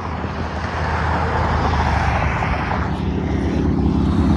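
A motor engine running with a steady low rumble and a hiss, growing gradually louder.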